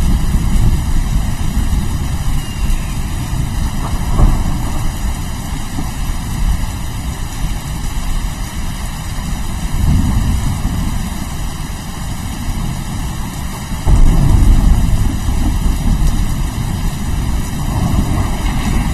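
Steady rain with rolling thunder: a low rumble swells about ten seconds in, and a louder roll of thunder breaks in sharply about fourteen seconds in.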